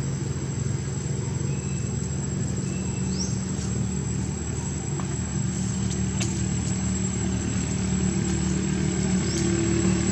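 An engine running steadily, with a low hum that grows louder near the end. A few short, high, rising chirps sound over it.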